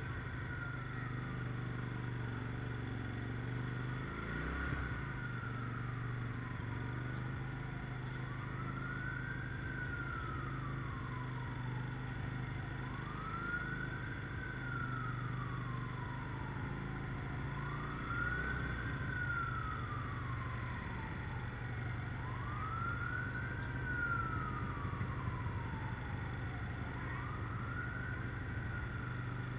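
Emergency-vehicle siren wailing, each cycle rising quickly and then falling slowly, repeating about every four and a half seconds. Under it is the steady low hum of a motorcycle engine running.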